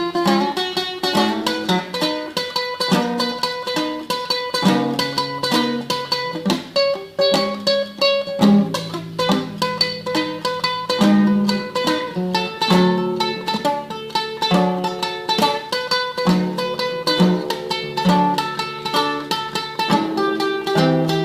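Solo classical guitar playing in tremolo: a melody of rapidly repeated plucked notes over a plucked bass line.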